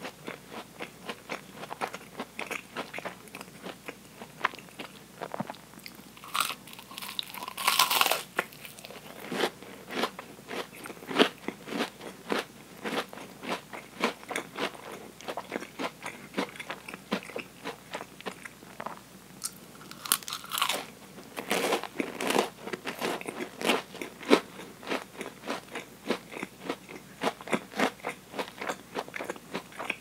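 Close-miked chewing of a deep-fried Oreo: a steady run of sharp crunches as the fried batter and cookie are chewed, with two louder, longer crunching bursts, about a quarter of the way in and again about two-thirds through.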